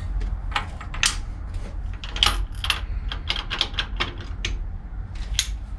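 Steel gears and shafts in the open gearbox of an Archdale horizontal milling machine clinking against each other as a shaft and gear are fitted by hand: an irregular run of sharp metallic clicks, thickest in the middle.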